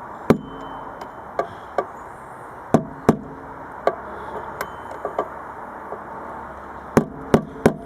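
Hammer blows on a spacer pressed against a washing machine heater element, driving in the element's centre fitting to release its seal. They land as single sharp knocks at uneven intervals, with three in quick succession near the end.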